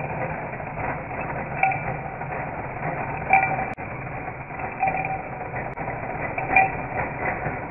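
Battery-operated trumpet monkey toy running: a steady whir of its small electric motor and gears, with a short toy-horn toot repeating about every second and a half, five times, and a single sharp click a little after halfway.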